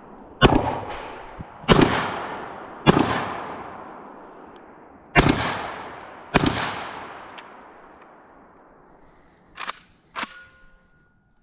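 Five shots from a Black Aces Tactical FD12 12-gauge bullpup shotgun: three about a second apart, a short pause, then two more, each shot echoing away. Two smaller sharp clacks follow near the end, the second with a brief metallic ring.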